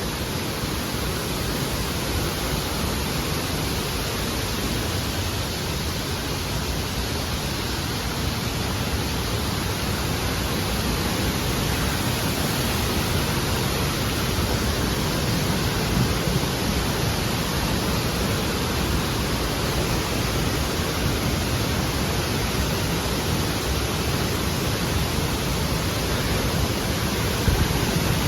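Steady rushing-water noise, an even unbroken hiss with no changes.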